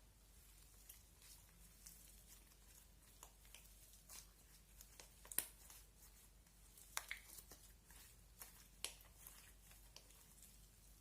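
Slime being squished and stretched by hand, giving faint sticky clicks and pops at irregular intervals, with a few sharper pops in the second half.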